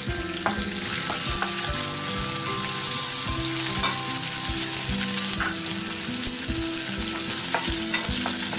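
Chopped green chillies frying in hot oil in a kadai, sizzling steadily while a wooden spatula stirs them, with occasional light taps and scrapes of the spatula against the pan.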